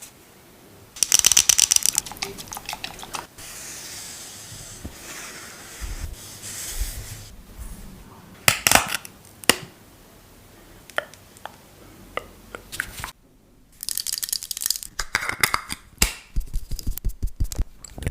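Close-miked ASMR handling of skincare products: bursts of rapid crackling or scratching, a few sharp clicks around the middle, and a run of quick taps near the end.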